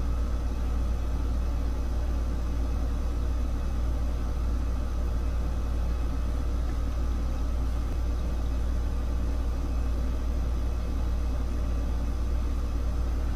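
A steady low hum under a constant faint hiss, with no distinct events.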